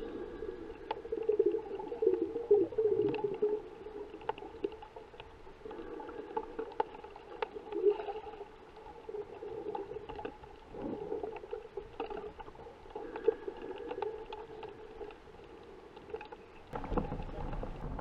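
Underwater sound picked up by a camera in a waterproof housing: a muffled, wavering hum with scattered sharp clicks and crackles. Near the end the camera breaks the surface in a rush of water noise.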